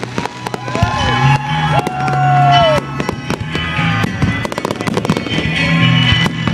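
Fireworks bursting and crackling in quick, irregular succession, over music with a steady bass line.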